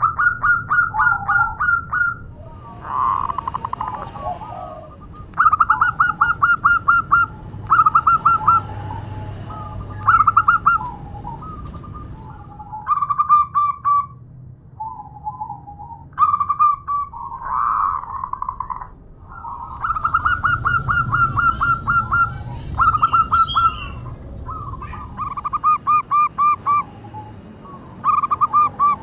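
Zebra dove (perkutut) cooing in repeated phrases of fast, clipped notes, each phrase a second or two long with short pauses between. The uploader presents it as a female calling to a male.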